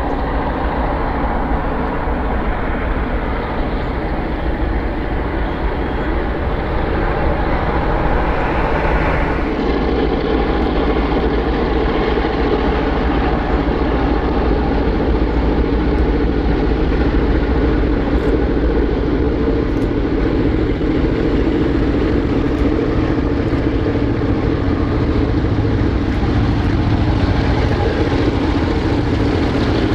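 Diesel-electric freight locomotives with EMD engines, led by an X-class with its 16-567E V16, working a long train toward the listener: a steady engine drone that grows louder over the second half as the train nears.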